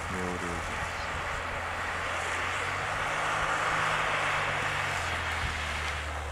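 Mitsubishi Pajero SUV's engine running steadily as it drives through wet snow and slush, over a steady hiss; the engine note drops about five seconds in.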